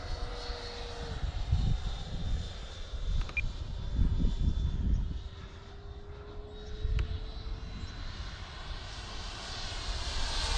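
Freewing Avanti S RC jet's 80 mm electric ducted fan, driven by a 3658 1920Kv inrunner motor, whining steadily in flight. Its pitch drops about a second in, then slowly climbs, and the fan grows louder near the end as the jet comes closer. Low rumbles on the microphone come and go a few times.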